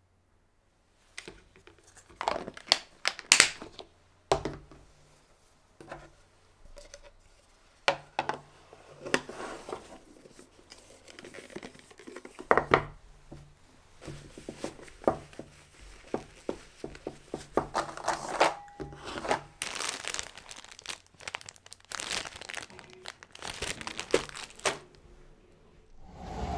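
A lunch box and its lids are handled on a wooden table with sharp clicks and knocks, then a cloth wrap rustles as it is folded around the bento box and knotted.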